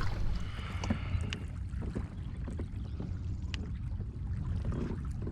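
Steady low rumble of wind and water around a kayak on open water, with a few faint scattered clicks.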